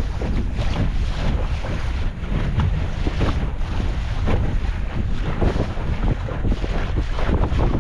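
Heavy wind buffeting the microphone of a camera fixed on the deck of a Sunfish sailboat under sail, with choppy water splashing and slapping against the hull at irregular moments.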